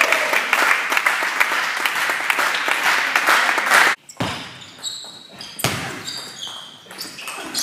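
Spectators applauding in a sports hall for about four seconds, cut off abruptly. Then a table tennis rally: the ball knocks sharply off the bats and the table roughly every half second.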